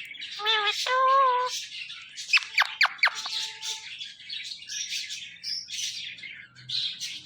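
Pet parrot calling: two short pitched calls, then several quick falling whistles about two and a half to three seconds in, followed by scattered high chirps and squawks.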